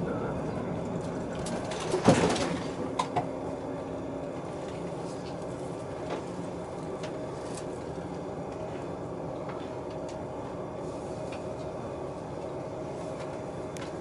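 Steady hum of a JR Central KiHa 85 series diesel railcar standing after an emergency-stop signal, with its engines and on-board equipment running. A loud clunk comes about two seconds in, followed by a couple of smaller knocks.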